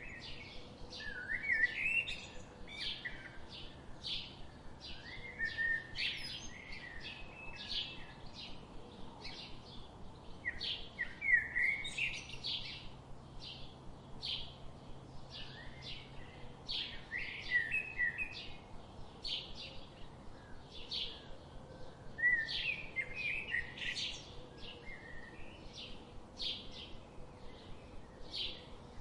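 Small birds chirping: a steady run of short, high chirps about two a second, with bursts of quicker, warbling twitter several times.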